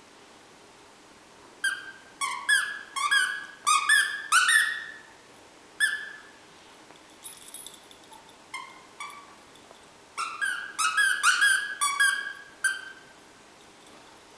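A puppy chewing a squeaky soccer-ball dog toy, squeezing out short squeaks in quick runs: about seven squeaks a couple of seconds in and about eight more around ten seconds in, with a few softer squeaks between.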